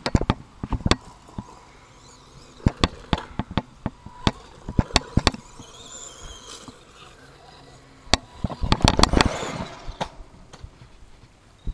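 A DEERC 1/16-scale electric RC truck driven fast over rough ground: scattered sharp clacks and knocks, with a louder rush of noise about nine seconds in.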